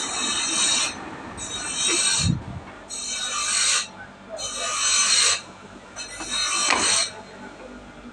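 Wood being rasped or sanded by hand: five scraping strokes, each just under a second, about a second and a half apart.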